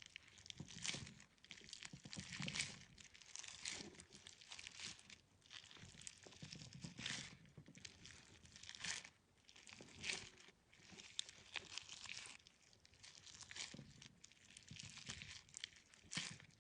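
Jelly being squeezed and popped, giving crackly, crinkling squishes that come irregularly every second or two.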